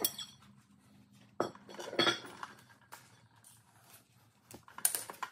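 Metal brake parts clinking and knocking together as they are handled: a handful of separate sharp clinks, the loudest about two seconds in and another cluster near the end.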